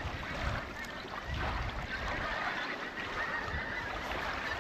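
A flock of ducks calling across the water, faint and scattered, over a low rumble of wind on the microphone.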